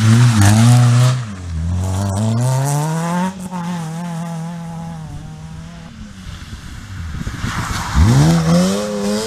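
Rally car engine on a special stage, changing pitch with the driver's inputs. It drops low about a second and a half in, then climbs through the gears and fades away. Near the end the engine revs sharply up from low again and is loudest about eight seconds in.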